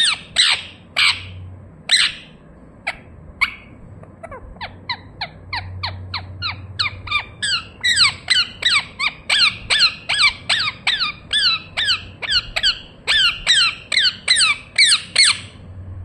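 Indian ringneck parakeet (rose-ringed parakeet) calling: a few loud, separate screeches, then a long fast run of short squawks, about three a second, each sliding down in pitch, growing louder about halfway through and stopping just before the end.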